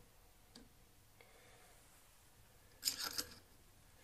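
Hand tools handled at a screw on a Singer 201 sewing machine: a few faint clicks as a screwdriver bit is set in the screw, then a brief scraping rattle about three seconds in.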